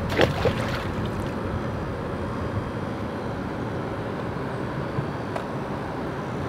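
Steady outdoor background rumble and hiss. In the first half-second there is a short noisy splash as the thrown grappling claw lands in the canal water.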